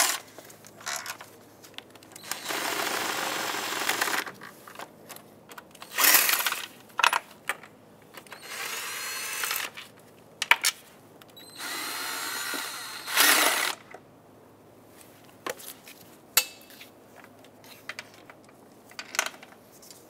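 Cordless power tool running in several short spurts of one to two seconds, spinning out the intake manifold's 10 mm bolts one after another. Light metal clicks of the bolts and socket fall in between the runs.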